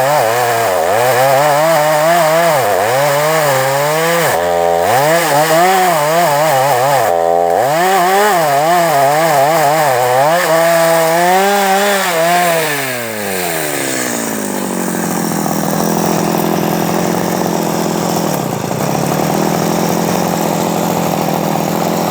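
Two-stroke chainsaw cutting wood, its engine pitch dipping and rising again and again under load, twice dropping sharply for a moment. About thirteen seconds in it winds down and settles into a steady idle.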